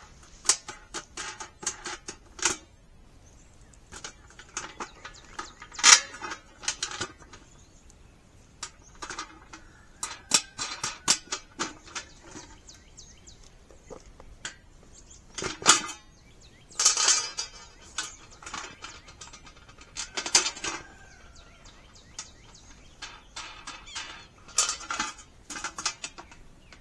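Irregular metallic clinks and clanks of steel raised-bed panels, screws and wing nuts being handled as the screws are pushed through lined-up holes and the nuts started by hand.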